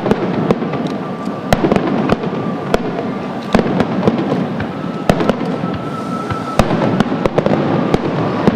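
Aerial fireworks display: many sharp bangs and cracks of bursting shells at irregular intervals over a continuous rumbling din.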